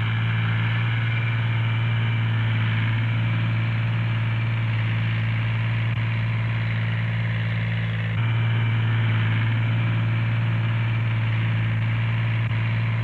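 Ford diesel tractor engine running steadily while pulling a plough through heavy soil: a low, even drone, with a slight change in tone about eight seconds in.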